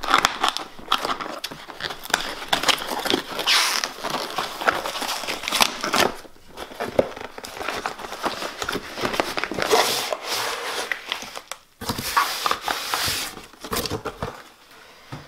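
Packing tape being peeled and torn off a cardboard shipping box, with cardboard and paper crinkling and crackling. It drops off briefly about two-thirds of the way through and fades near the end.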